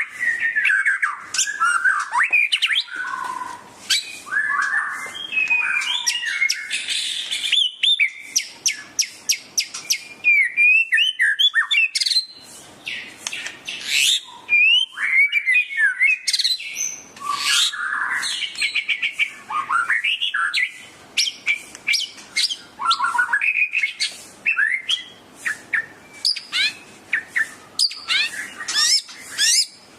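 White-rumped shama (murai batu) singing a long, varied, nearly unbroken song of rapid whistled glides, chattering notes and sharp clicks.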